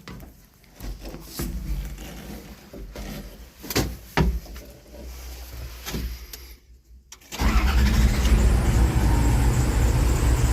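Log lift's engine being started: faint low rumbling and clicks, then about seven seconds in the engine catches and runs steadily and loudly, warming up on its freshly repaired double-battery connections.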